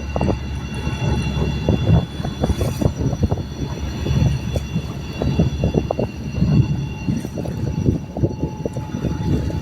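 Steady low rumble with irregular buffeting, typical of wind blowing on the microphone aboard a moving boat, with a few faint steady high tones.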